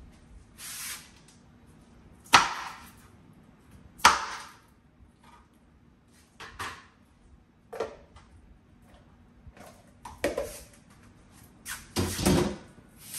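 Irregular sharp knocks and clatter of kitchen things being handled and set down on a counter, about a dozen in all, two of them much louder than the rest, with a longer clatter near the end.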